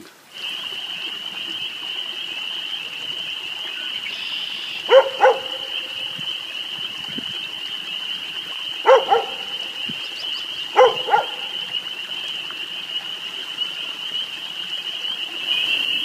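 A chorus of spring peepers: a steady, high-pitched mass of peeping from many frogs. Three louder double calls from another animal break in about five, nine and eleven seconds in.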